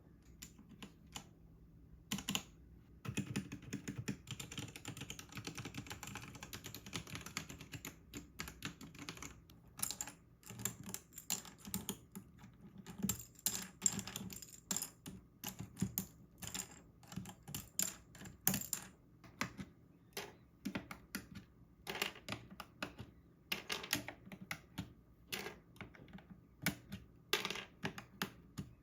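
Typing on a Royal Kludge RK84 mechanical keyboard with brown switches. A fast, dense run of keystrokes comes first, then separate key presses at a few per second.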